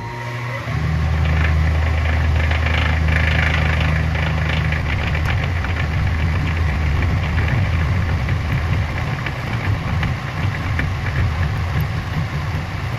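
Clausing horizontal milling machine with a toothed side-milling cutter climb-milling a slot in an aluminum bar: a loud, steady machine drone under the rasping, chattering noise of the teeth cutting metal. It builds up within the first second, and the drone turns rougher from about halfway.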